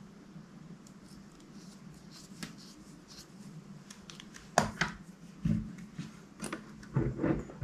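Close-up slime-handling sounds: faint crackles, then from about halfway a few louder sharp clicks and sticky pops, over a steady low hum.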